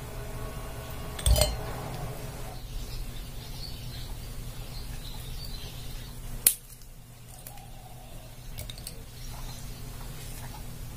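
Dried dates dropped from a bowl into a glass jug: a single thud with a glassy clink about a second in. A second sharp click comes about six seconds in, over a steady low hum.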